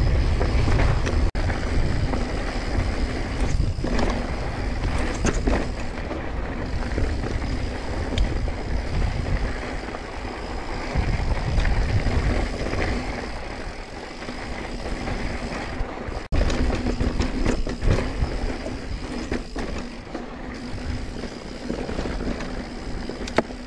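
Mountain bike riding down a rocky dirt singletrack: tyres crunching over dirt and stones and the bike rattling over bumps, with a few sharp knocks from hits. Wind rumble on the body-mounted camera's microphone is heaviest for the first several seconds, then eases.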